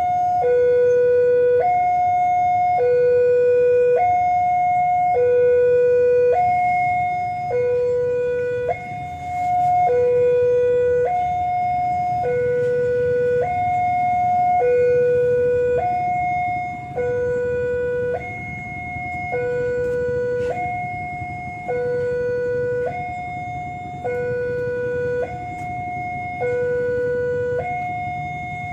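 Electronic railway level-crossing alarm sounding a two-tone warning, high and low tones taking turns, each held a little over a second, on and on: the signal that the barriers are down for an approaching train.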